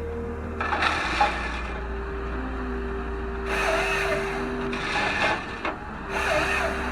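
A heavy machine's engine running steadily while its cutting tool chews into wood and roots in four rough grinding bursts.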